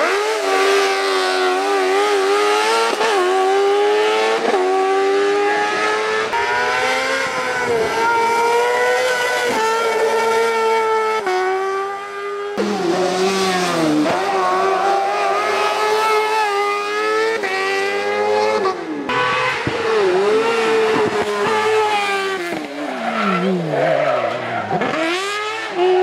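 Kart cross buggies' high-revving motorcycle engines at full throttle, the pitch repeatedly climbing to near 16,000 rpm and dropping at each gear change and downshift, over several separate runs.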